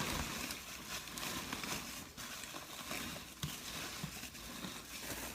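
Faint rustling and crinkling of packing wrap as a singing bowl is unwrapped, with a few light knocks.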